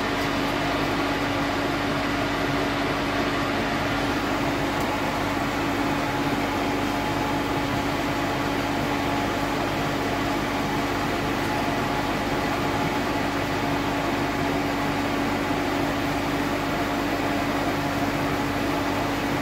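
Steady machine hum with an even hiss, one low tone held constant and no change in level.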